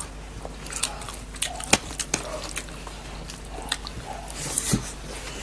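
Close-miked eating of chow mein noodles: chewing and wet mouth smacks with scattered sharp clicks, and a longer slurp a little after four seconds in.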